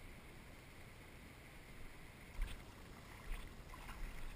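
Canoe drifting on a shallow river: faint water noise against the hull, with two soft knocks a little after halfway through.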